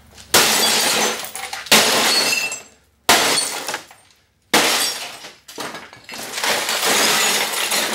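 Old RCA XL100 CRT television being smashed: glass shattering and crashing in four sharp blows about a second and a half apart, each trailing off, then a longer run of crashing glass and debris near the end.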